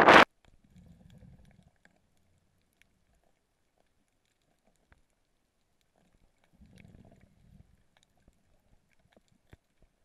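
Wind buffeting the microphone stops abruptly right at the start, giving way to the hush of a GoPro recording underwater: two faint, muffled low rumbles, around one second in and again near seven seconds, and scattered faint clicks.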